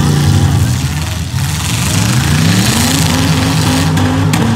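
Demolition derby car engines running loud, one revving up about a second in and holding its higher pitch. Two sharp knocks near the end.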